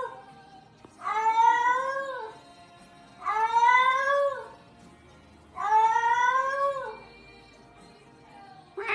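A cat yowling: three long, drawn-out calls about two seconds apart, each rising a little then falling away. The tail of an earlier call is heard at the start and a short cry near the end.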